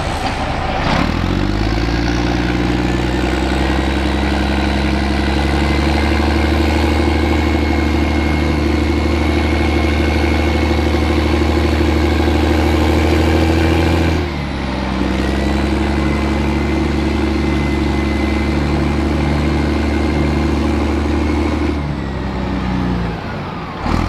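M113 armoured personnel carrier's engine running loud and steady as the vehicle drives. The note dips and shifts a little over halfway through, picks up again, then drops away and comes back near the end.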